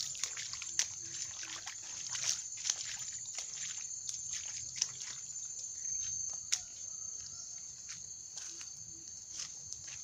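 A steady high-pitched chorus of insects, with scattered crackles and rustles of footsteps and leaves brushing past as someone walks through wet undergrowth.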